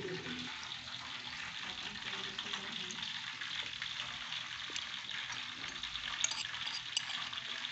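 Food frying in a wok: a steady sizzling hiss with scattered small crackles.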